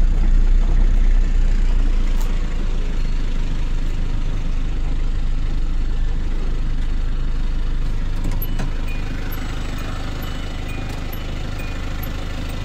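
Car engine running steadily, easing off a little and getting somewhat quieter over the second half.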